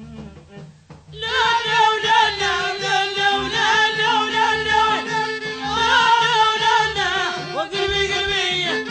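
Moroccan folk song music: a quieter passage with a steady beat, then about a second in the full band comes in much louder with the melody.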